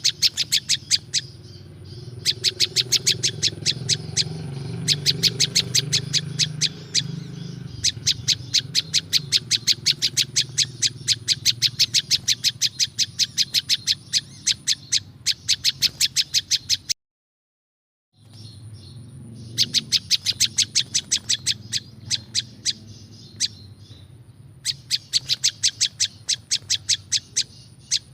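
Prenjak lumut, a small songbird, calling in fast runs of sharp repeated chip notes, about eight to ten a second, each run lasting a few seconds, as used in a lure call. There is a faint steady high tone under it and a brief dead-silent break past the middle.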